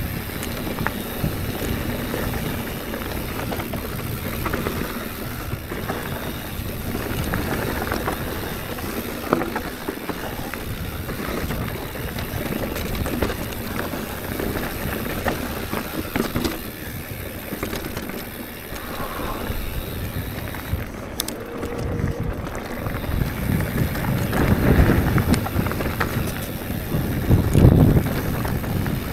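Mountain bike riding a dirt singletrack: tyres rolling over dirt and stones, wind on the microphone, and frequent small clicks and rattles from the bike over bumps, louder near the end.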